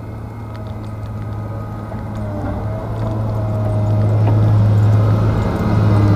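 Diesel engine of a Volvo wheel loader running under load as it pushes deep snow with a front plough blade. It is a steady low drone that grows steadily louder as the machine comes closer.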